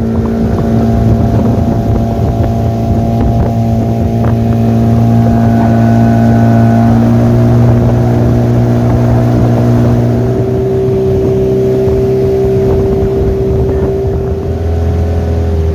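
Outboard motor driving a small aluminium fishing boat at speed, running steadily; its note shifts about ten seconds in and drops lower near the end.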